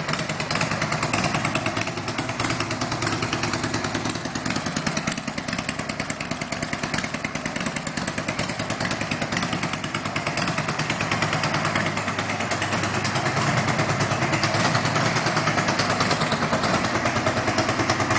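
Custom 2002 Harley-Davidson Sportster's air-cooled V-twin engine running steadily, its exhaust pulsing in a rapid, even beat that grows slightly louder about two-thirds of the way through.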